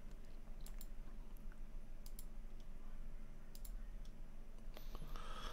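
Faint computer mouse clicks: three pairs of quick clicks about a second and a half apart, over a low steady hum.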